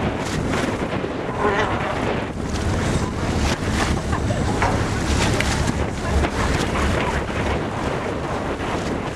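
Wind buffeting the microphone over open sea, with water sloshing in a steady, gusty rush.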